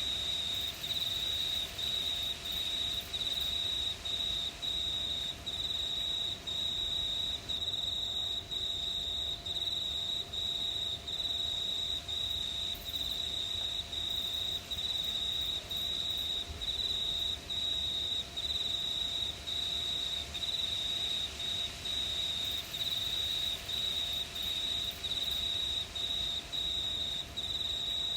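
Crickets chirping at night: one loud, high, steady trill that breaks off for a moment about once a second, over a fainter background.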